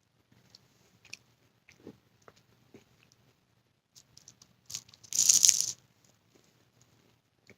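A bite into flaky baklava: a loud crunch of the pastry layers lasting under a second, a little past the middle, among faint clicking mouth and chewing sounds.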